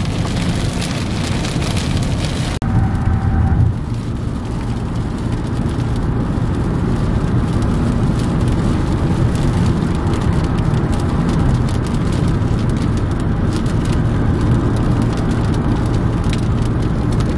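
Rain pattering on a moving car's roof and windshield as many small ticks, over steady road noise inside the cabin. The sound drops out for a moment about two and a half seconds in.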